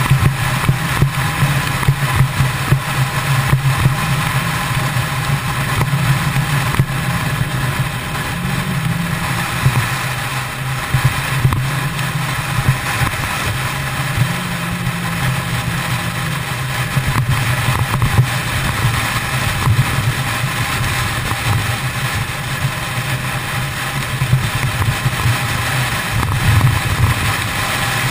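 Kawasaki ZX10R inline-four sport bike engine running at a steady freeway cruise, its note rising briefly a couple of times, with steady wind and road noise.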